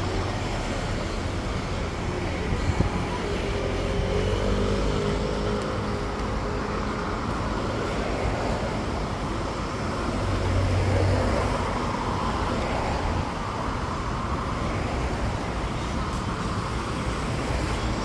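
Road traffic running by on a city street, steady, with one vehicle passing close and louder about ten seconds in.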